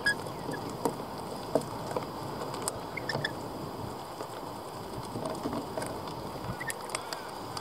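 Rainbow lorikeets feeding on seeds and peanuts: scattered sharp clicks and crunches of beaks cracking seed and knocking on the tray, with a few brief high chirps, over a steady hiss.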